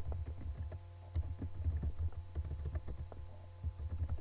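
Typing on a computer keyboard: a quick, irregular run of keystroke clicks as a line of text is typed, over a low hum.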